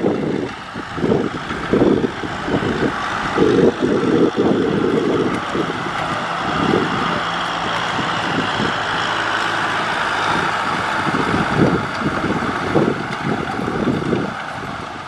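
Kubota M6040SU tractor's diesel engine running steadily under load while its rotary tiller churns through dry soil, with irregular gusts of wind buffeting the microphone.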